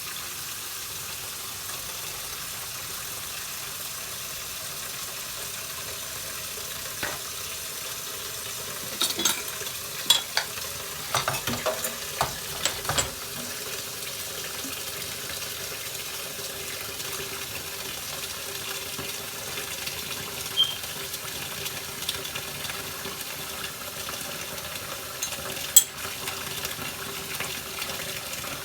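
Clinks and knocks of dishes and utensils being handled, a cluster of them about nine to thirteen seconds in and single sharp knocks later, over a steady hiss.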